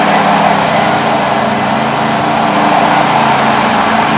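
A machine with a motor running steadily and loudly: a constant low hum under a strong, even hiss that neither rises nor falls.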